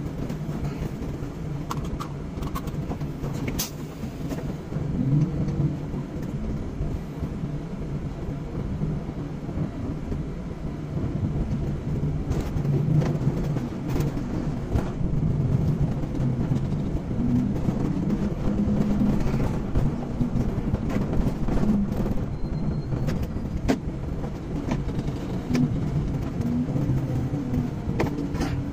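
Car engine and road noise heard from inside the cabin while driving, the engine note rising and falling with speed. A few brief knocks and clicks are heard along the way.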